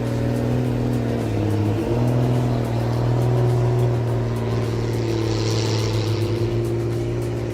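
Heavy machine's diesel engine running steadily under load, its pitch dipping briefly and recovering about two seconds in, with a short hiss about five seconds in.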